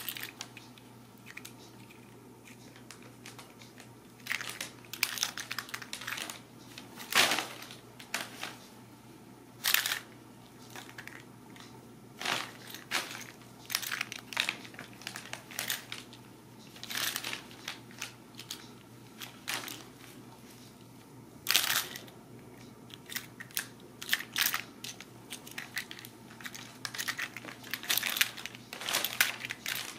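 Brown kraft paper crinkling and rustling in short, uneven bouts as kittens scramble and pounce on it.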